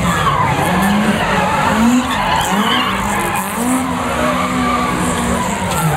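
Small rally hatchback's engine revving up and falling back several times as it is thrown around a tight cone course, with its tyres skidding on the tarmac.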